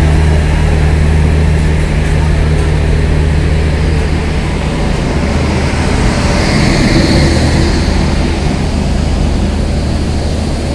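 Steady low drone of a standing passenger train's machinery: the diesel generator set running in the luggage-brake-and-generator power car, with the electric locomotive's cooling blowers adding a hiss that swells about six seconds in.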